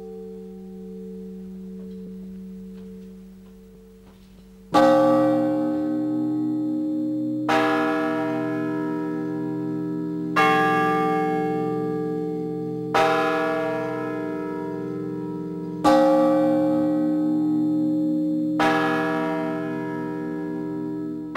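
Russian Orthodox church bells rung by hand with ropes pulled to their clappers. A low bell's hum dies away, then about five seconds in the bells are struck together, seven strokes in all, one about every two and a half to three seconds. Each stroke rings on under the next over a steady low hum.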